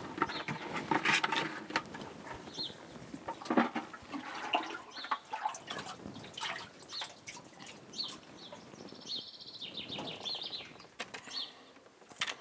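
Irregular knocks, scrapes and rustles of hands working with a bucket and rope among stone, while a bird chirps now and then, with a short trill about nine seconds in.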